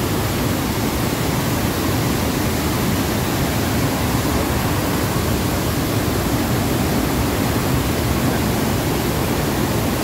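A waterfall in spate, a heavy torrent of muddy runoff water pouring over a rock ledge and rushing across the rock shelf close by: a loud, steady rush of water with no breaks.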